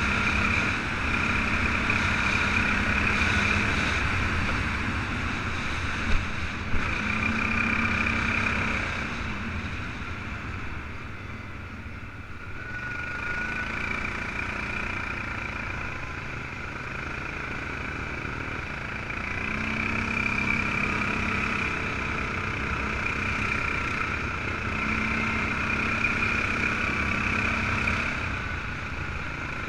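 ATV engine running as the quad is ridden along a dirt trail, the revs rising and easing off in turn with the throttle. It drops back around twelve seconds in, then picks up again. There are two sharp knocks about six and seven seconds in.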